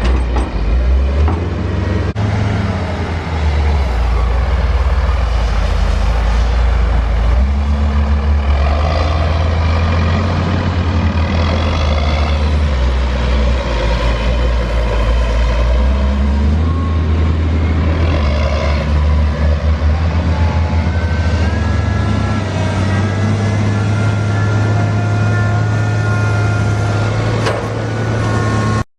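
Heavy diesel farm machinery working, with the engine note shifting in pitch and load several times. A thin whine comes in over the engine about two-thirds of the way through.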